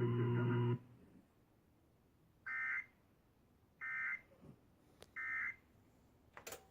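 Emergency Alert System end-of-message code heard over a radio: three short, identical bursts of SAME digital data tones about 1.3 s apart, the signal that the alert message is over. Before them a steady humming tone stops under a second in, and near the end there is a click and a brief noise burst.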